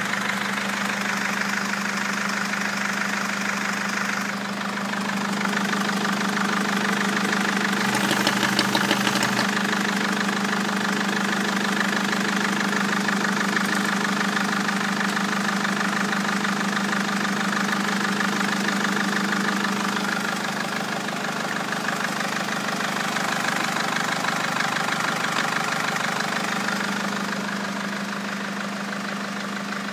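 Mercedes-Benz OM611 2.2 CDI four-cylinder common-rail diesel from a Sprinter running steadily at idle, with a short louder moment about eight seconds in.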